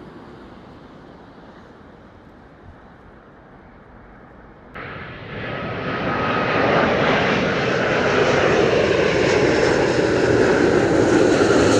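Faint steady noise, then an abrupt jump about five seconds in to a jet airliner on approach. It is an Airbus A350-1000 with Rolls-Royce Trent XWB engines, growing louder as it nears, with a steady whine over the rumble.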